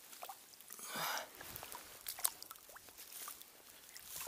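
Shallow river water swishing and splashing as a hand releases a pike into it, with a short swish about a second in, then a few faint clicks.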